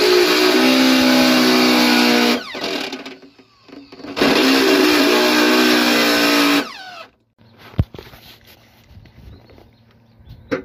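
Electric drill with a step drill bit boring holes through the metal top of an electrical enclosure: two runs of about two and a half seconds each, the motor whine winding down after each. Two sharp clicks follow in the quieter second half.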